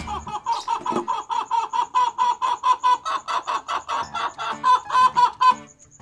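A bird calling in a rapid, even series of short notes, about six a second, which stops suddenly near the end. A faint high pulsing chirp runs underneath.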